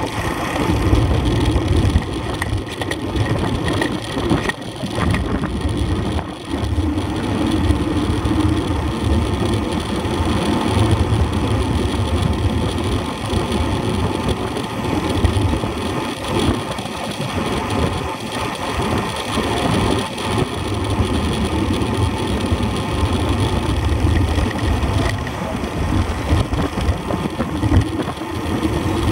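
Wind rushing over the microphone of a camera riding along with a road bicycle: an uneven low rumble that swells and dips, with road and tyre noise.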